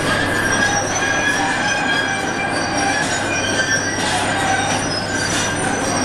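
Construction machinery at work: metal squealing and screeching in several high pitches that come and go every second or so, over a steady low hum and a constant loud din.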